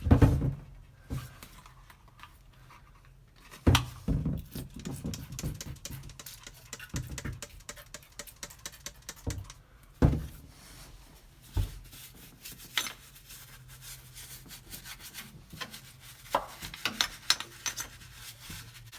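Scattered knocks and handling against the metal, then near the end a brush scrubbing rust dissolver gel onto the steel floor pan with quick scratchy strokes.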